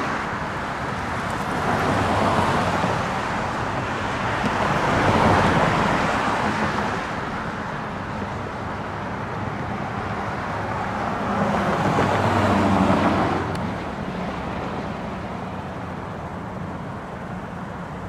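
Road traffic: cars passing one after another, their tyre and engine noise swelling and fading three times. The last pass, about twelve seconds in, carries a low engine hum.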